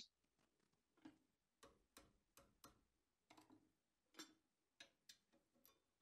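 Near silence with about a dozen faint, irregularly spaced clicks, the strongest about four seconds in.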